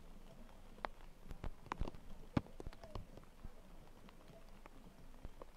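Irregular sharp clicks and taps, several a second in the first half and thinning out later, the loudest about two and a half seconds in.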